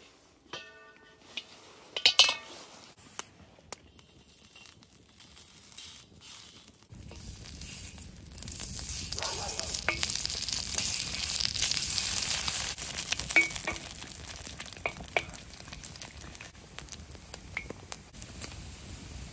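Food sizzling in a hot pan over a fire. First come a few metal clinks and a sharp knock, then the sizzle swells up, peaks and settles to a lower steady frying with small pops.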